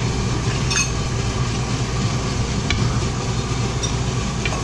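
Kimchi stew cooking in a frying pan on a gas stove: a steady hiss with a low hum, a few light clicks, and an orange plastic ladle stirring the stew near the end.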